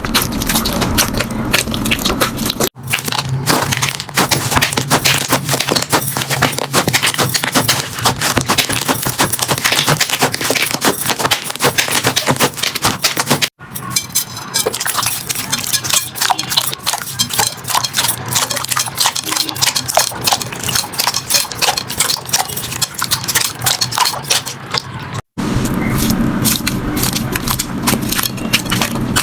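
Slime being squeezed and pressed by hand, giving dense crackling and popping clicks. The texture changes abruptly three times, about 3, 13 and 25 seconds in, where one slime clip cuts to the next.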